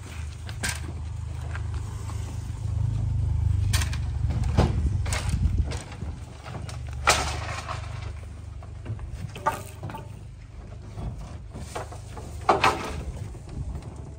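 Large rain tree log being pushed and levered up wooden plank ramps onto a truck: a low rumble for the first several seconds, with scattered sharp knocks and thuds of wood against wood.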